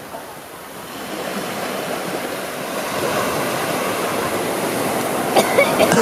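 Steady rushing water, slowly growing louder.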